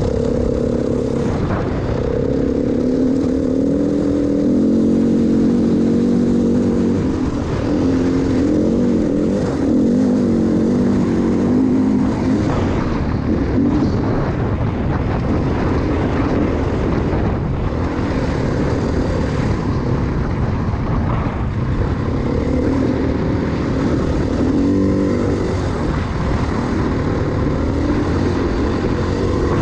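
KTM dual-sport motorcycle engine running under way on sand, its pitch rising and falling with the throttle, over a steady low rumble of wind on the microphone.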